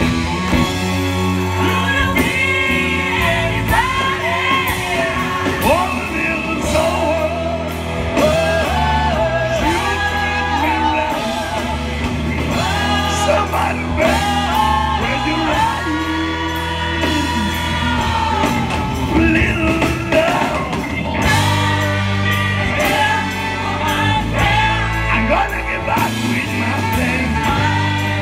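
Live rock band playing with vocals over the full band, a steady bass line underneath.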